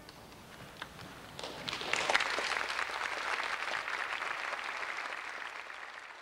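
Concert hall audience applauding. A few scattered claps start about a second in and swell into full, dense applause by about two seconds, which holds steady and then fades out near the end.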